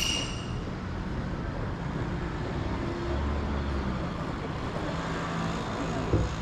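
Steady rumble of motor vehicles or traffic, with a low engine hum.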